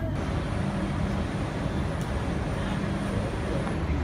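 Steady street traffic noise on a wet city road, with a low engine hum underneath.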